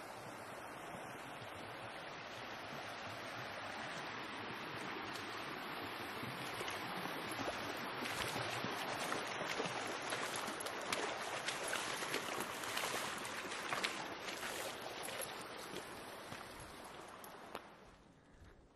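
Rushing brook water, a steady hiss that slowly grows louder, with quick footsteps crunching through dry leaf litter over the middle stretch. The water sound falls away sharply near the end.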